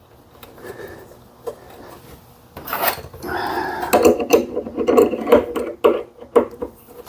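Rasping metal-on-metal scraping with a quick run of clicks from the Briggs & Stratton engine's recoil starter clutch being worked back and forth after penetrating oil has freed it from being seized. Faint rubbing at first, then a sharp click about three seconds in and a busier stretch of scraping and clicking.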